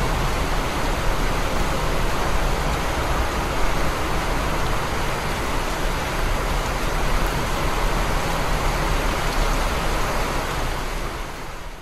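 Heavy rain pouring down in a city street: a dense, steady hiss with a low rumble underneath, fading out near the end.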